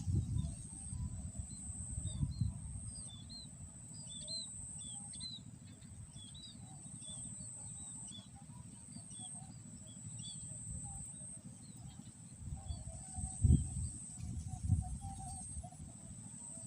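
Swamp-side outdoor ambience: a small bird chirping repeatedly in short quick notes over a steady high-pitched insect whine, with low rumbling handling noise and two dull thumps near the end.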